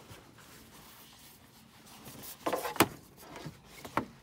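A Coleman camping sleeping pad being pushed into an SUV's cargo area beneath a plywood deck: soft handling sounds, then a rustle and scrape a little past halfway with a sharp knock, and another sharp knock near the end.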